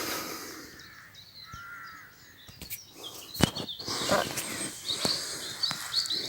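Wild birds calling and chirping, with a few sharp clicks and knocks around the middle and rustling noise in the second half.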